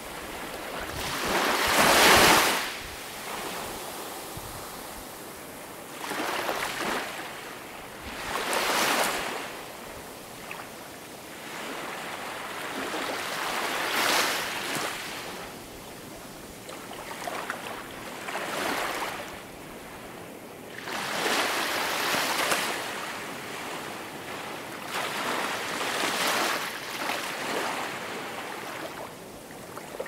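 Small waves lapping onto a pebble beach, a rush of water washing up and drawing back over the stones every few seconds. The loudest surge comes about two seconds in.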